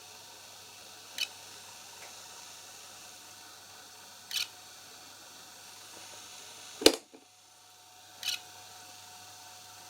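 Yamazen YLT-AK301 electric fan running with its guard and blades taken off: a faint steady motor hum, broken every three to four seconds by a short scratchy click. This intermittent click is the abnormal noise the fan still makes even without its blades and cover. About seven seconds in there is one much louder sharp click.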